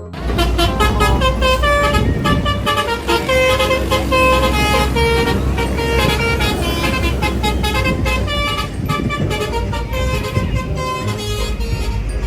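Bus telolet basuri horn playing a quick melody of short pitched toots, several notes a second, over the low steady rumble of the bus engine.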